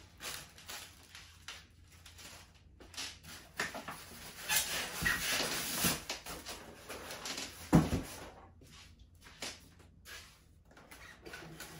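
Polystyrene foam packing squeaking and rubbing against the cardboard box as it is pulled out, with rustling and light handling knocks. A single thump about two-thirds through is the loudest sound.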